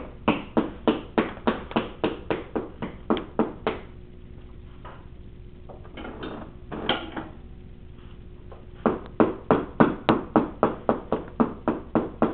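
Quick rubbing strokes, about four a second, on wet saddle-seat leather being worked smooth under a draw-down strap. Two runs, with a pause of a few seconds between them.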